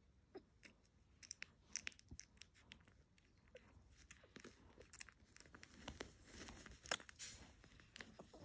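Three-day-old Yorkshire Terrier puppy suckling at its mother's teat: faint, irregular smacking clicks from its mouth, with a sharper click about seven seconds in.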